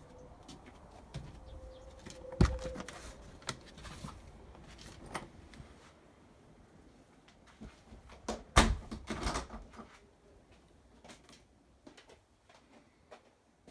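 Interior doors being opened as someone walks through a house: a faint squeak and a sharp latch click about two seconds in, scattered small knocks, and a louder cluster of thumps and knocks a little after halfway.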